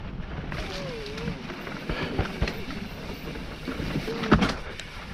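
Propain Spindrift enduro mountain bike descending a rough dirt trail: steady rush of wind and tyres on the camera microphone, with many short clattering knocks from the bike over rocks and roots, the loudest about four seconds in.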